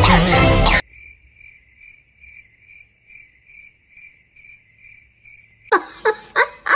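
Cricket chirping: a steady high chirp repeating about twice a second. It starts abruptly when loud music cuts off about a second in, and louder sharp sounds break in near the end.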